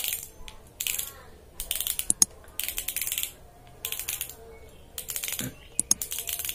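Front drag knob of a Teratai X-One spinning reel being unscrewed by hand to take the spool off, clicking in short runs of rapid clicks, about once a second as the fingers turn it.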